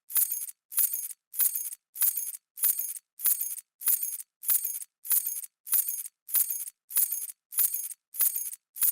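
A bunch of metal keys dropped onto a hard surface, jingling briefly, played again and again at an even pace of a little under two drops a second. Each drop is a short, bright metallic jingle.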